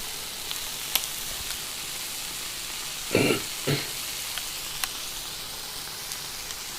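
Egg-dipped bread frying in a buttered frying pan: a steady sizzle, with a few light clicks.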